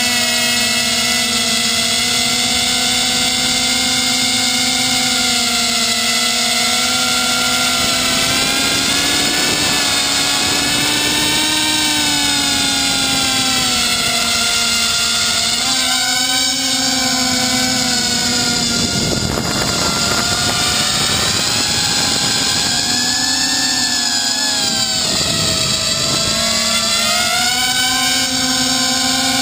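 Brushless motors and propellers of a small 250-size FPV quadcopter (1806 2400Kv motors), whining steadily as heard from a camera mounted on its frame. The pitch sinks and rises again a few times in the second half as the throttle is eased off and opened back up.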